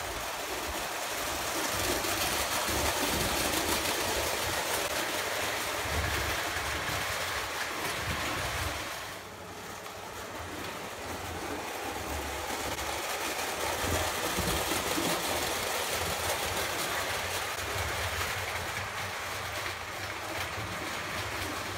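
Lionel O gauge toy trains running on metal three-rail track: a steady rumble and clatter of wheels and electric motors, dipping briefly about nine seconds in.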